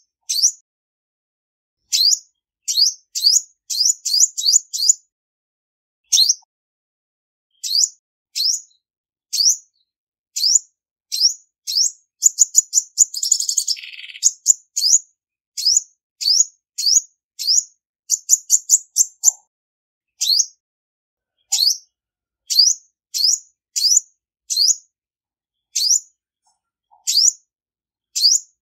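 Female olive-backed sunbird calling: short, high, sharp notes, each a quick upward sweep, repeated every half second to a second, with a fast chattering flurry about twelve seconds in. Clean, with no background noise between the notes.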